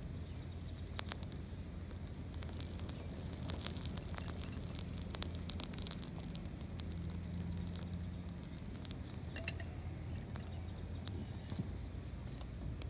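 Burn pile of oak branches, freshly thrown onto hot coals, burning with a steady hiss and scattered sharp crackles and pops. A low steady rumble runs underneath.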